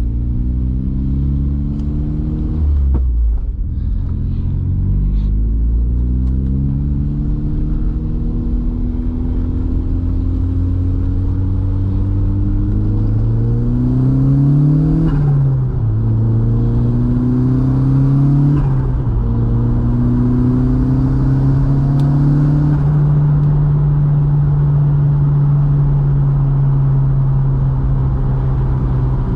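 VW Mk2's 1.8T four-cylinder engine pulling up through the gears, its note climbing and dropping back at gear changes about 3, 15 and 19 seconds in, then holding a steady cruise for the last several seconds.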